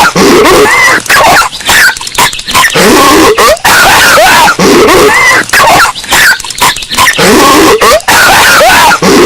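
Patrick Star's cartoon coughing and hacking, played as a short loop that repeats about every two seconds, three times through. It is boosted until it clips and distorts heavily, as in an ear-rape edit.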